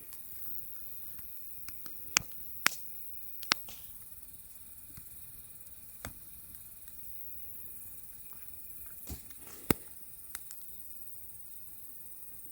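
Wood campfire crackling: scattered sharp pops and snaps over a steady soft hiss, the loudest a little after two seconds in, again about three and a half seconds in, and near ten seconds.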